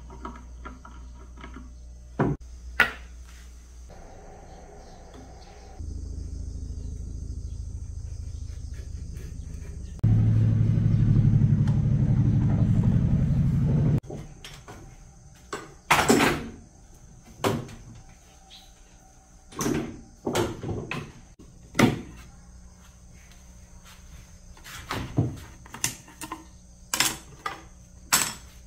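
Workshop handling sounds: scattered knocks and clicks of a bar clamp and hand tools against a wooden frame. A steady low motor hum runs for several seconds in the middle and cuts off suddenly. A constant high cricket chirp sounds underneath.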